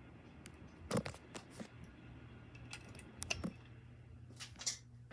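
Ceiling fan motor running with a low steady hum, under scattered light clicks and knocks, the loudest about a second in, just past three seconds, and near the end.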